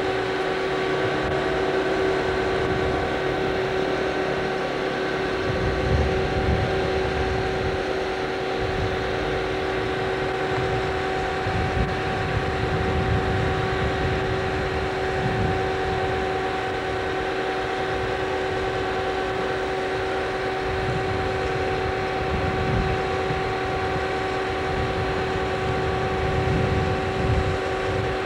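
Tractor running steadily while driving a grain auger, a constant machine hum over an uneven low rumble.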